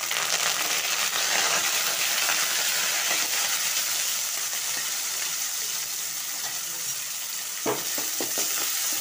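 Curry leaves, crushed garlic and chopped shallots sizzling in hot oil in a metal kadai, the sizzle starting suddenly as they go in. About eight seconds in, a slotted metal spatula scrapes and stirs them in a few quick strokes.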